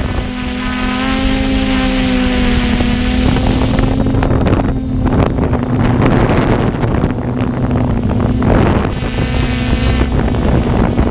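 Multirotor drone's propellers humming steadily as it climbs, with wind rushing over the onboard microphone.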